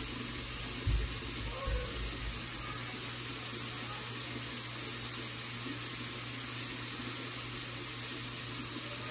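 Tap water running steadily into a bathroom sink, with a couple of soft low thumps about one to two seconds in.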